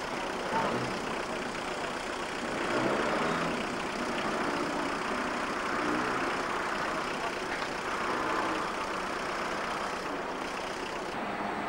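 A heavy vehicle's engine running steadily, with faint voices in the background.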